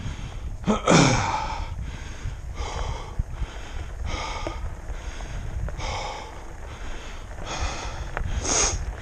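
A person breathing hard and wheezing from the exertion of climbing: heavy gasping breaths about every second and a half, the loudest about a second in with a short falling groan in the voice.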